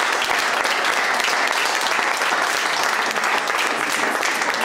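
Applause from a roomful of people, many hands clapping at a steady level.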